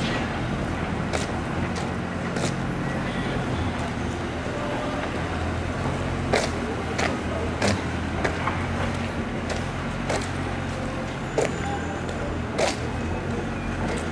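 Street traffic noise: a steady low hum of motor vehicles running nearby, with scattered sharp clicks and knocks, more frequent in the second half.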